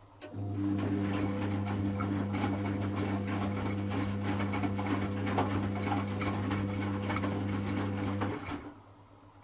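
Servis Automatic M3008B washing machine turning its drum during the first rinse: the motor starts with a steady hum and tumbles the wet load, which sloshes and patters, for about eight seconds. Then it stops suddenly for the pause before the next turn.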